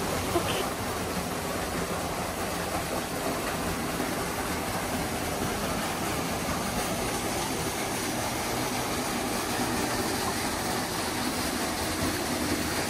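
Steady rushing of fast-flowing stream water, an even, unbroken noise.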